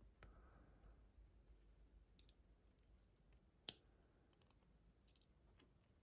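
Faint, scattered clicks of small metal lock parts, the pins and wafers of a Zeiss Ikon SK6 cylinder being handled as the lock is taken apart, with one sharper click about three and a half seconds in.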